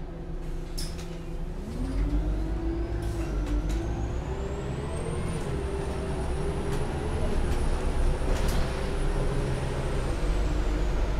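Heuliez GX 317 GNV natural-gas city bus standing with its engine running. About two seconds in, the engine gets louder and a whine rises in pitch, holds, then sinks again near the end, with a few short hisses of air in the first few seconds.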